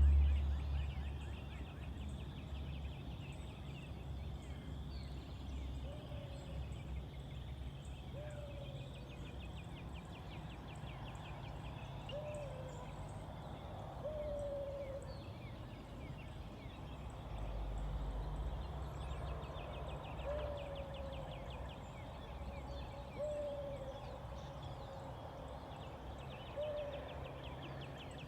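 A series of short, mid-pitched animal calls, each a brief rise and fall, repeated every two to three seconds. A fast, high-pitched trill runs on and off above them, and a low steady hum sits underneath.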